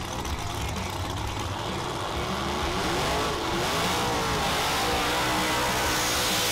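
Drag race car engine revving, its pitch rising and falling a few times about halfway through, then held higher and steady.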